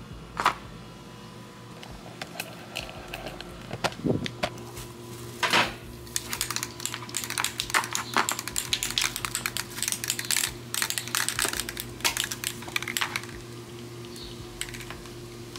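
Plastic bags and paper packaging rustling and crinkling as items are handled among them, with a dense run of crackles from about five to thirteen seconds in, over a steady low hum.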